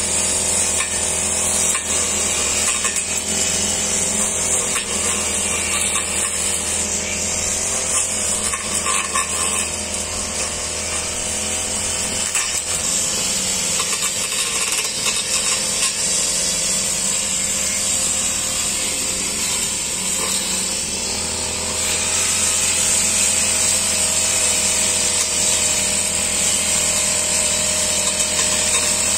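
A brush cutter's small engine runs steadily at high speed while its metal blade cuts grass, growing a little louder about three-quarters of the way through.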